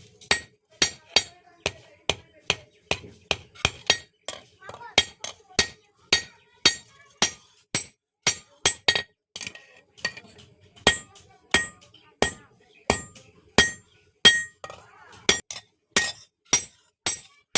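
Blacksmith's hammer beating a metal spatula blank on an anvil: a steady run of ringing metallic strikes, about two to three a second.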